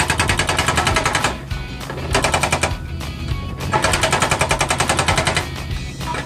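Excavator-mounted hydraulic breaker hammering concrete rubble in rapid bursts of blows, about a dozen a second. It stops and starts again three times over the steady hum of the excavator's engine.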